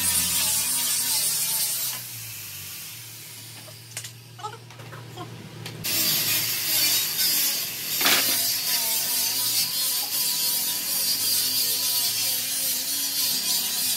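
A power tool running with a loud, steady hiss. It stops for a few seconds, with a few small clicks, then starts again, and there is a sharp click about eight seconds in.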